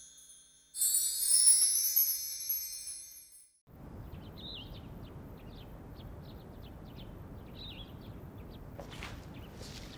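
A bright, shimmering chime sting rings out about a second in and fades away over the next two seconds. It is followed by a steady low ambient hush with birds chirping now and then, and a few faint taps near the end.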